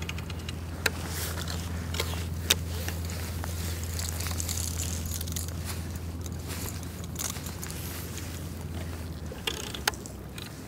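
A steady low engine hum that drops away about nine seconds in, with a few sharp clicks and light scraping over it.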